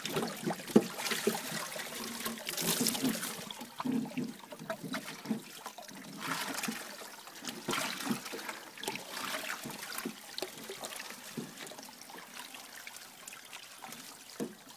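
Water from a hose trickling and splashing through a gold-prospecting rocker box, over its rubber matting and expanded-mesh riffles, with scattered small knocks and clicks.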